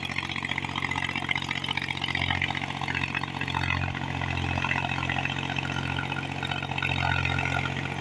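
Mahindra B275 DI tractor's three-cylinder diesel engine running steadily under load as the tractor drives through a wet paddy field, its low hum swelling and easing now and then.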